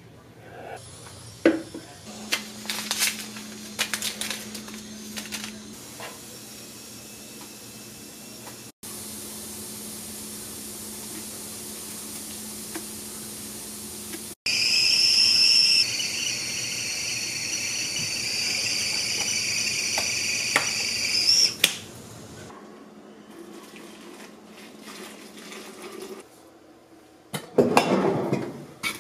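Stovetop whistling kettle at the boil: a loud, steady, high whistle that lasts about seven seconds and stops suddenly. Before it come scattered kitchen clinks over a low hum; near the end there is rubbing and clinking as jars are handled.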